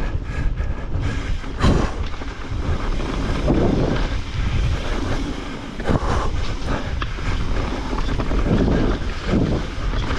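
Wind buffeting the microphone of a mountain bike descending a rough downhill trail, a constant rumble and rush with a few sharp knocks as the bike hits bumps.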